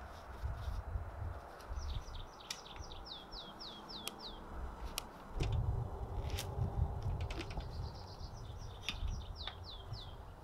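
A songbird singing two runs of quick, falling notes, each lasting about two to three seconds, over a low rumble. A few sharp clicks and knocks come through, and the rumble is loudest about halfway through.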